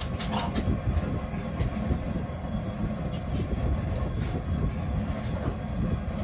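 A steady low rumble with an unsteady level, with a few faint ticks over it.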